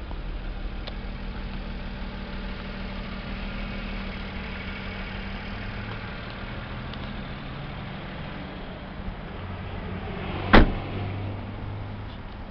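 Daihatsu Hijet kei truck's small three-cylinder engine idling steadily. About ten and a half seconds in comes one loud, sharp slam, a cab door being shut.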